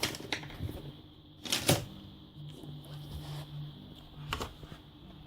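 Light clicks and knocks of a laptop screen panel and its plastic parts being handled, with a louder knock about one and a half seconds in. A faint steady hum sits underneath.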